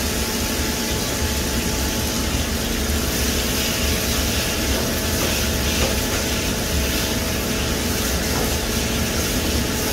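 Chopped and grated vegetables sizzling and steaming in hot oil in a large aluminium pot as they are sautéed, with a hiss that stays steady. Under it runs a steady low rumble with a faint hum.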